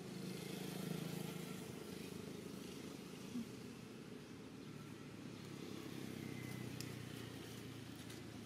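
Faint, steady hum of a distant engine, swelling slightly twice, with one brief short sound about three and a half seconds in.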